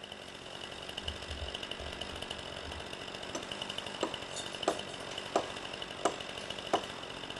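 Sharp, evenly spaced knocks of a tool working wood, about three every two seconds from about three seconds in, over a steady high-pitched whine.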